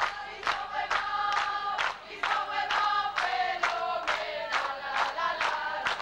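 A peña band's group of supporters singing together in chorus over a steady beat of about two strikes a second.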